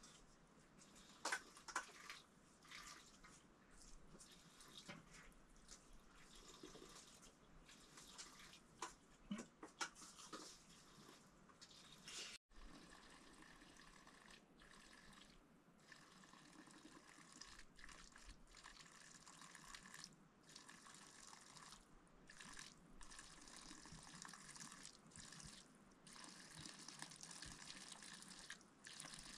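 Faint scattered light clicks and clinks over a soft hiss, then a steady faint hiss of running water that grows a little louder near the end.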